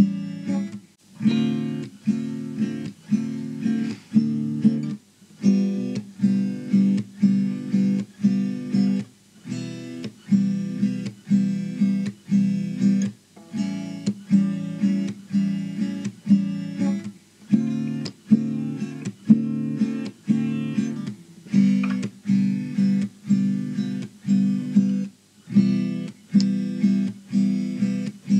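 Music: a guitar strummed in a steady rhythm, with short pauses between phrases.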